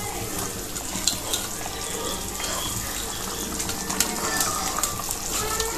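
Fish curry gravy boiling in a kadai, a steady bubbling hiss, with a few soft knocks as fried fish pieces are dropped in.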